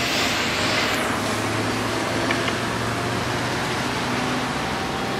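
Hyundai Veloster's power-folding side mirror motor running for about four seconds, a low steady hum starting about a second in, over a steady hiss of background noise.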